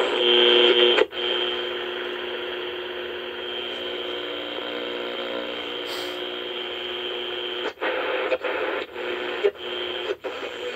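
Sony Dream Machine clock radio's speaker hissing with static and several steady whistling tones as the tuning dial is turned between stations. The sound briefly drops out about a second in and several times near the end as the dial moves.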